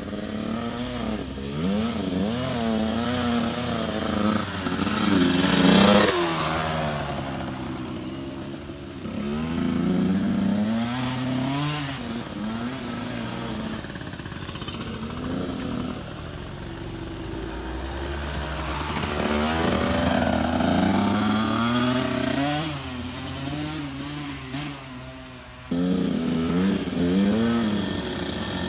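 Small youth dirt bike engines revving up and easing off as the bikes ride past on the trail, the pitch rising and falling over and over. The loudest pass comes about six seconds in.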